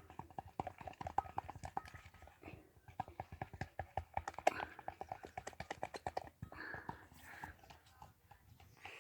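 Homemade toothpaste slime being mixed and squished by hand, giving a quick run of small sticky clicks and squelches that thins out after about six seconds.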